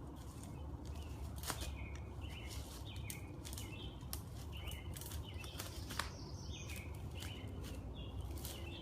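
Small birds chirping in short, quick notes, about two a second, with sharp clicks among them, over a steady low outdoor rumble.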